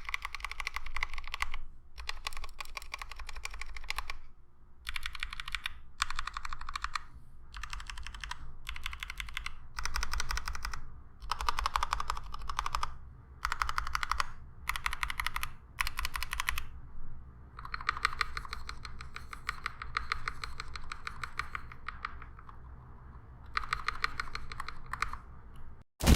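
Typing on a Tokyo 60% keyboard in HHKB layout, fitted with lubed Domikey x Kailh Cyberpunk Box 65 g switches and ABS doubleshot keycaps. Runs of rapid keystrokes come in bursts of one to two seconds, separated by short pauses.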